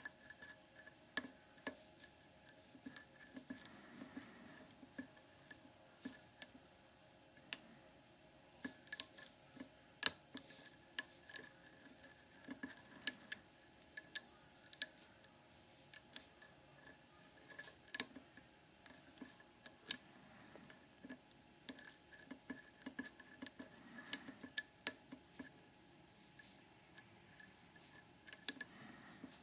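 Faint, irregular metal clicks and ticks of a hook pick working the pin tumblers of a Master Lock No. 532 padlock under a pry-bar tension wrench, pins clicking as they set.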